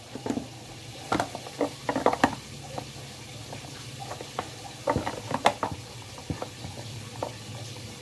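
Scattered clicks and knocks of hard plastic parts being handled as a cylindrical piece is pressed into a slot in a washing machine's plastic pulsator, with clusters about a second in, around two seconds and about five seconds in. A steady low hum runs underneath.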